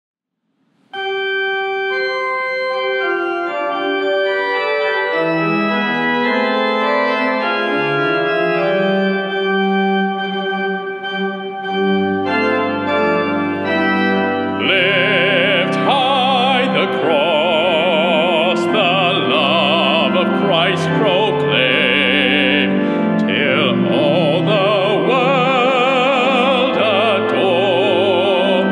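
Pipe organ starts an introduction of held chords about a second in, with a low pedal bass joining around twelve seconds. From about fifteen seconds a male soloist sings over the organ with a wide vibrato.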